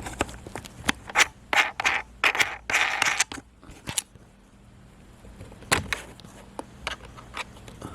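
Handling noise of a small plastic on-camera microphone and its holder being fitted together: a quick run of clicks and scrapes, then a few separate clicks.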